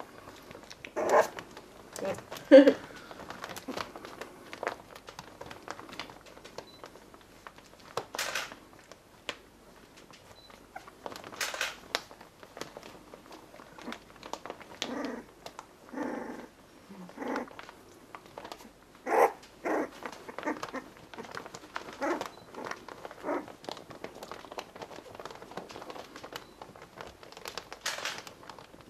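20-day-old Pembroke Welsh Corgi puppies whimpering and squeaking in short, scattered calls, the loudest a couple of seconds in, with a few brief scuffling noises in between.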